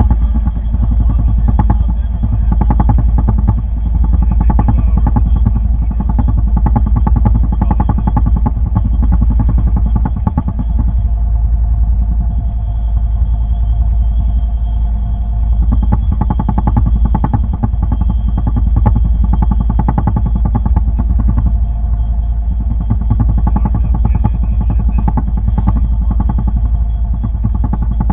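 A boat's engine running steadily at a constant speed, with a fast, even firing beat.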